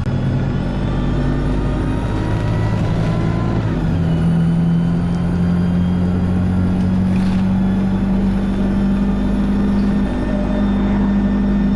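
A vehicle's motor running steadily, heard from on board. Its tones drop in pitch about four seconds in, then hold steady.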